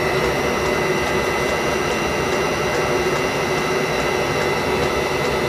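Webasto Thermo Top C auxiliary heater running: a steady whirring roar from its combustion-air blower and burner, with a thin high whine over it.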